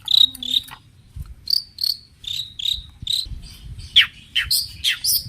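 Long-tailed shrike singing a rapid string of short, sharp, high chirps. About four seconds in, it switches to louder notes that sweep downward, about two a second.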